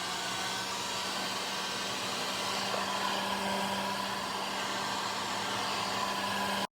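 Heat gun running steadily, heating an iPad Pro screen before it is pried off: an even blowing rush with a constant low hum, cutting off suddenly at the end.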